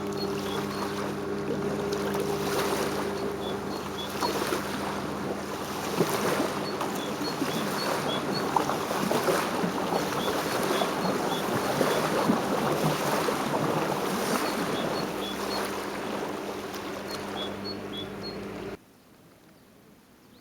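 Motorboat engine running with a steady hum, joined by a hissing rush that swells through the middle, while a small bird chirps repeatedly; the sound cuts off abruptly near the end.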